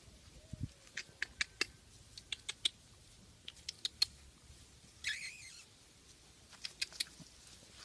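Light, irregular crackling and rustling of grass as a six-week-old beagle puppy walks and noses through it, with a brief louder rustle about five seconds in.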